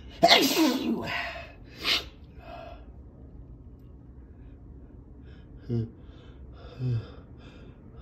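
A person with a stuffed-up head cold sneezes loudly about a quarter second in, a sharp burst with a cry that falls in pitch, followed by a second shorter burst about two seconds in. Two short voiced breaths come near the end.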